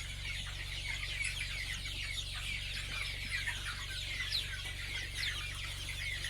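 A crowd of day-old chicks peeping without a break, many short, high cheeps overlapping each other, over a low steady hum.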